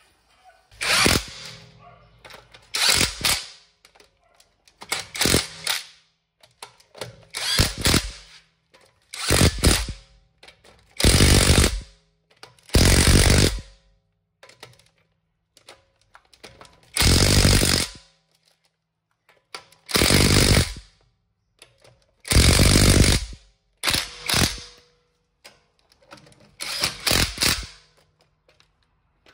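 Cordless impact wrench hammering wheel bolts, run in about a dozen short bursts a second or two apart.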